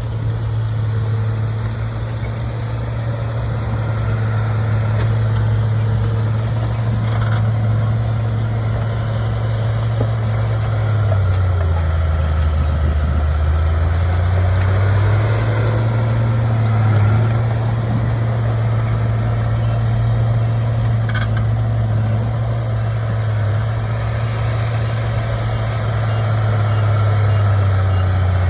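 Heavy diesel engine of a bulldozer running steadily. Its pitch drops for a few seconds about halfway through and then climbs back up.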